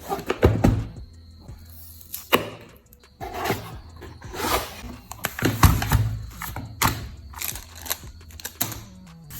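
Irregular rustling and knocks as a mechanical keyboard is handled out of its packaging, over background music.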